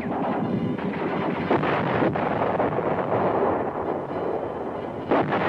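Battle sounds of tank combat exercises: a dense, continuous rumble of gunfire with several sharp shots cracking out, the loudest near the middle and near the end.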